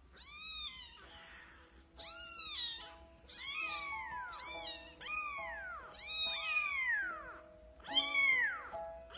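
Young kitten meowing repeatedly, about six high calls that each rise and then fall in pitch. Soft background music with sustained notes plays underneath.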